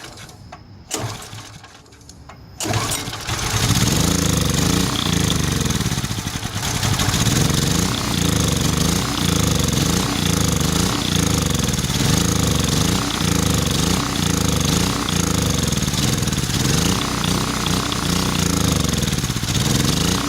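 A few sharp knocks, then about three seconds in the Centurion Generac 3250 generator's small gasoline engine starts and keeps running, its speed rising and falling over and over. It runs only because gas is being force-fed into the carburetor, which the mechanic takes as a sign of clogged carburetor ports rather than an ignition fault.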